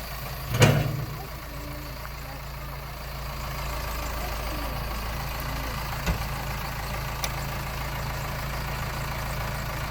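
Heavy engine idling steadily, with a single loud knock under a second in.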